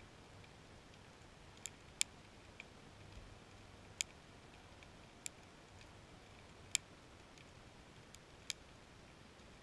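About eight short, sharp clicks at irregular intervals, picked up underwater, over a faint steady hiss.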